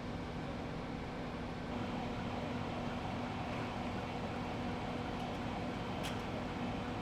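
A vehicle engine running steadily with a low drone, plus a single short click about six seconds in.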